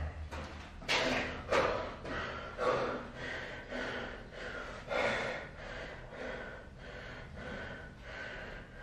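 A man breathing hard after a set of burpees, heavy open-mouthed breaths roughly once a second that grow quieter and more even in the second half as he recovers.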